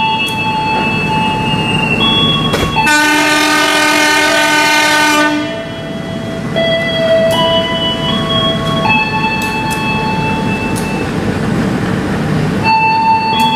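A diesel locomotive sounds its horn once, for about two and a half seconds, a few seconds in, as the passenger train pulls out. The locomotive and coaches rumble past throughout, under a slow melody of held notes.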